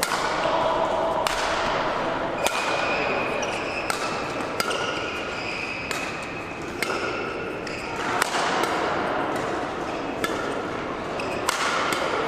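Badminton rally: rackets striking a shuttlecock back and forth, a sharp hit about once a second, each echoing briefly in the hall.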